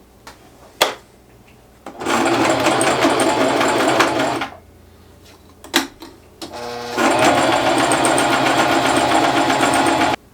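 Sewing machine stitching in two steady runs of a couple of seconds each, the second starting slowly before reaching full speed, with a sharp click before each run; it is finishing the raw edges of a t-shirt-fabric patch so they don't fray.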